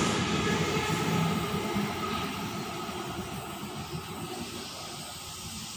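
Electric suburban passenger train moving away along the platform, its rumble fading steadily as the last cars leave.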